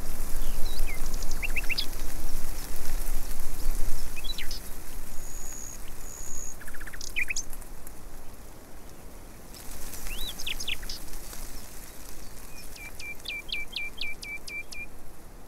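Several small birds chirping and calling: scattered short chirps, trills and whistled notes, ending in a run of quick repeated notes, over a steady outdoor background noise.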